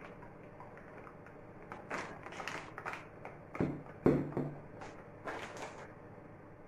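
Kitchen utensils knocking and clattering: a few light clicks and scrapes, then two louder thumps about three and a half and four seconds in.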